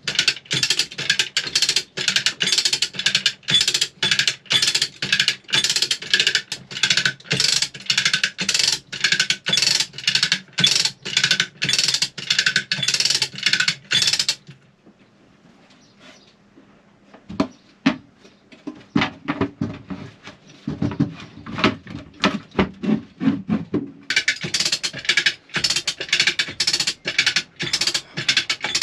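Ratchet of a come-along chain hand winch clicking steadily, about two to three clicks a second, as the lever is cranked to hoist an engine block out of the boat. About halfway the clicking stops for several seconds, with scattered knocks, then starts again near the end.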